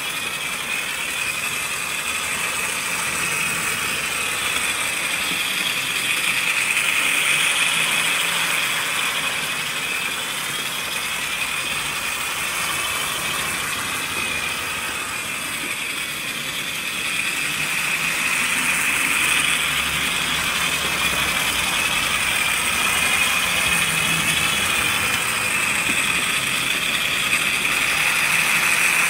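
Tri-ang TT scale 'Windsor Castle' model locomotive running round an oval of track with two coaches: a steady whirr and rattle from its electric motor, gears and wheels on the rails. It swells and fades as the train comes round the oval.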